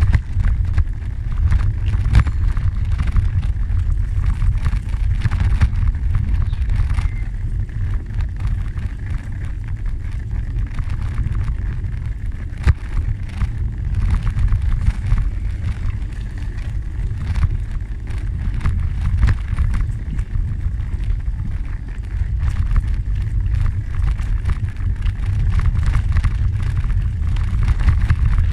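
Steady low rumble of wind buffeting the microphone while moving along a gravel trail, with scattered small clicks and crunches from the ground surface.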